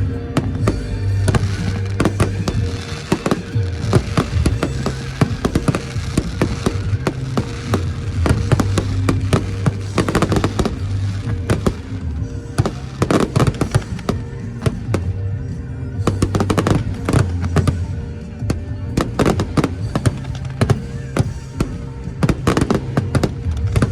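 Fireworks display: many sharp bangs and crackles in quick succession. Music with a heavy bass line plays underneath the whole time.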